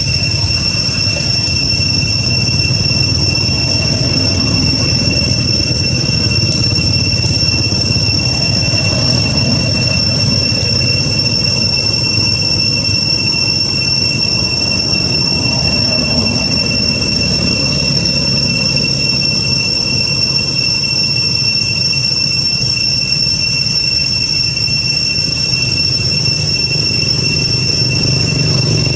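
Cicadas holding one high, unbroken whine, over a steady low rumble.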